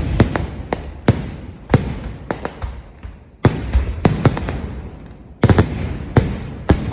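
Kerala temple fireworks (vedikettu) going off: an irregular series of loud sharp bangs, some in quick clusters of two or three, each trailing off in a rumble before the next.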